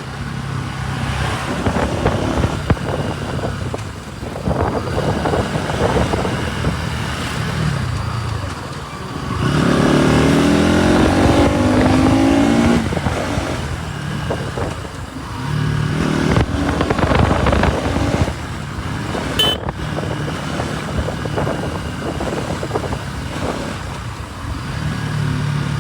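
Bajaj Pulsar NS200's single-cylinder engine running on the move, with rushing wind noise on the microphone. About ten seconds in it revs up and pulls through a gear, the loudest part, then settles back to a steadier run. A sharp click comes near the end.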